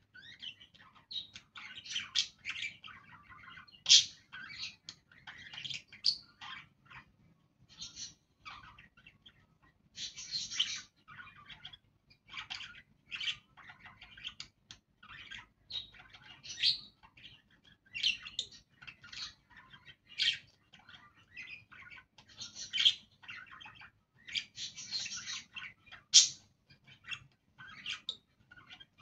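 Budgerigars chirping and chattering in quick, irregular runs of short calls, with a few calls much louder than the rest.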